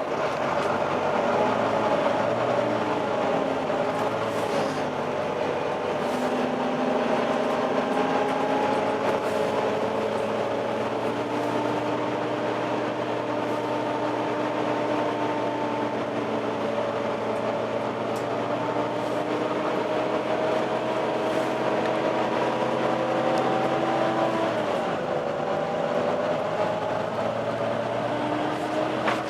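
Volvo B9TL double-decker bus running, its cooling fan giving the steady vacuum-cleaner-like whine known as a 'hoover', over the engine. The tones drift slowly in pitch as the bus changes speed, with a drop about 25 seconds in.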